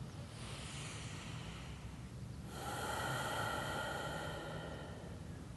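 A person breathing slowly and audibly close to the microphone: a faint inhale, then a longer, louder exhale starting about two and a half seconds in.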